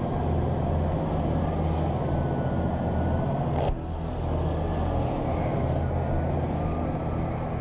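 A steady low mechanical hum, with an abrupt break about three and a half seconds in, after which it carries on a little quieter.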